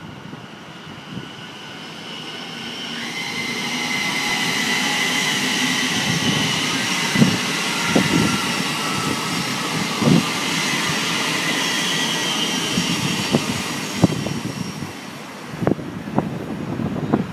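Thameslink Class 700 electric multiple unit passing through the station: a steady rush of wheels on rail with a high whine, and sharp clicks from the wheels crossing rail joints and points. The sound swells as the train comes by and fades as it draws away near the end.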